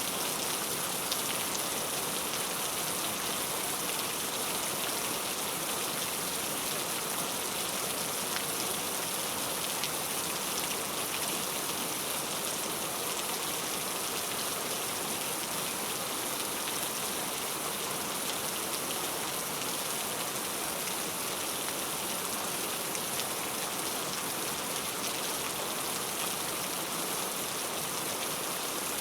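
Heavy rain falling steadily: a dense, even hiss with faint scattered drop ticks.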